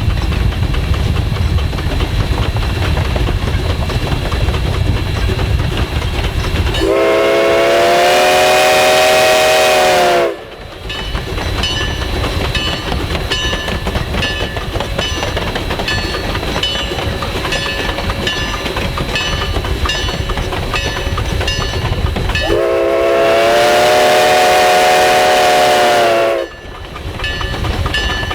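Ten-wheeler steam locomotive 152 running past with its train: steady rumble and wheel clatter, with two long blasts of its chime steam whistle, one about a quarter of the way in and one near the end.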